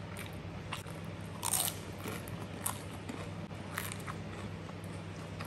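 Crisp fried chips being bitten and chewed close to the microphone: irregular crunches, the loudest about one and a half seconds in.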